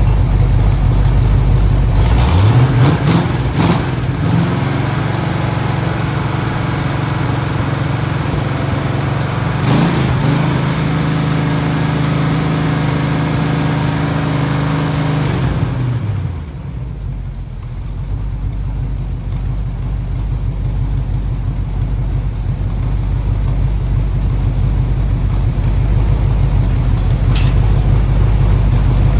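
Freshly rebuilt Oldsmobile 403 V8 running on its first start, held at fast running speed to break in the new Comp Cams camshaft. The revs rise about two seconds in and again near ten seconds, hold steady, then drop back about sixteen seconds in to a lower, steady running speed.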